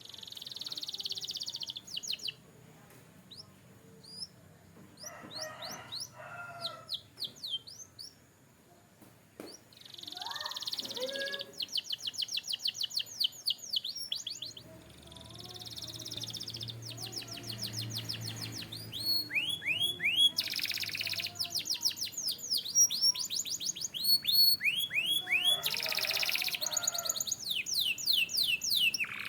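Canary singing: fast trills of quickly repeated high notes and buzzy rolls, in phrases broken by short pauses, with a few lower warbled notes between them.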